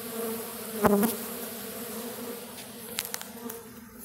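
Honey bee swarm buzzing steadily around a hive box as the bees settle into it, with one louder buzz about a second in.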